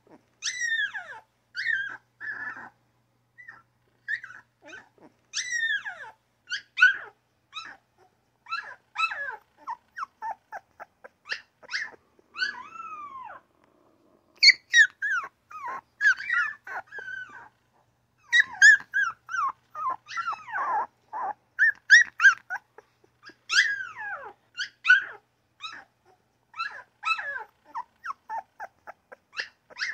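Newborn puppies whimpering, yipping and grunting back and forth in a steady stream of short, high calls, many of them sliding down in pitch.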